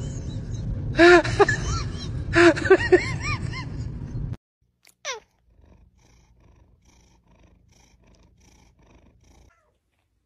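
Domestic cat meowing in short calls that rise and fall in pitch, three within the first three seconds, over a low steady rumble that cuts off about four seconds in. A brief falling whistle-like glide follows, then only faint low sound.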